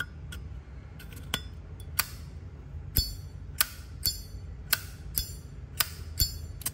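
Gold-plated brass Zippo lighter's lid being flipped open and snapped shut again and again: sharp metallic clinks with a bright ring, about one every half second.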